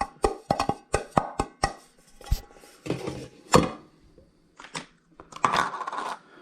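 Hands handling rice cooker parts and packaging. A quick run of sharp clicks opens it, then knocking with one sharp knock about halfway, and rustling of packaging near the end.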